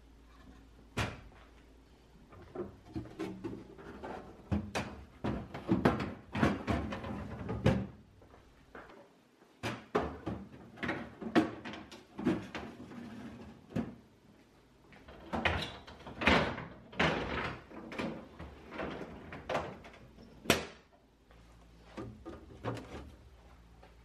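Clicks, knocks and light rattles of food containers being set onto refrigerator shelves and clear plastic crisper drawers being handled. They come in clusters, with the sharpest knocks standing out singly and short lulls in between.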